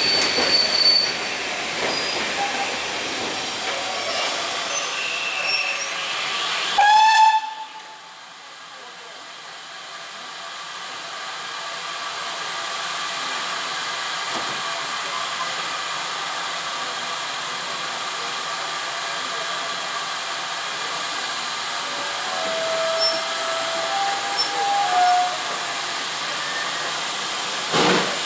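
GWR Hall-class steam locomotive Swithland Hall: train noise, then a brief loud whistle blast about seven seconds in. A steady hiss of steam follows, swelling slowly and then holding.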